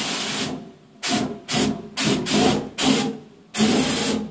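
Aerosol can of flammable spray hissing in a series of short bursts, about six in four seconds, as the spray is fired and burns around the wheel rim to seat the tyre bead.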